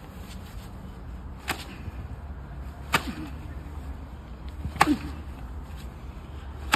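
A sauna suit's fabric snapping taut four times, about two seconds apart, as it is yanked hard over a metal bar in a test of its tearing strength.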